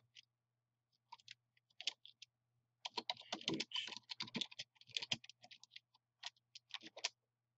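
Computer keyboard typing: a few scattered keystrokes, then a dense run of fast key presses in the middle, then a few more single presses near the end.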